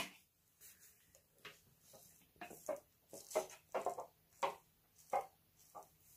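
A person drinking from a bottle, a quiet series of short gulps and swallows roughly every half second.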